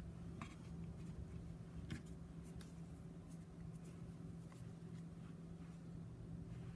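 Faint rustling and light taps of hands handling crocheted pieces on a card surface, over a steady low hum.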